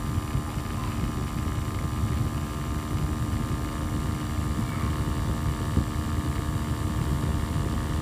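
Small electric DC motor of a homemade toy tractor running steadily as it drives the wheels along the floor: a constant whine over a rattling low rumble.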